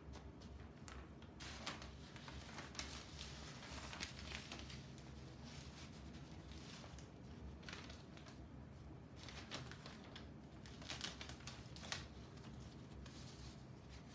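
Soft paper rustling and light handling noises from paper shadow-puppet cut-outs on sticks being moved behind a paper screen, coming in scattered short bursts over a faint steady low hum.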